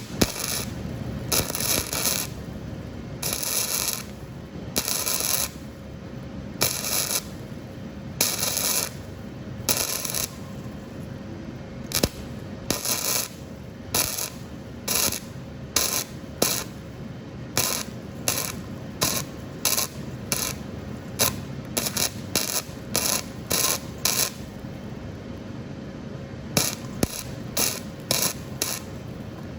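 Flux-core MIG welder arc crackling in short bursts, about thirty of them, as weld is built up on a broken exhaust manifold stud. The first bursts last up to about a second. From about halfway they come short and quick, about two a second, with a brief pause before a last few. A faint steady hum runs underneath.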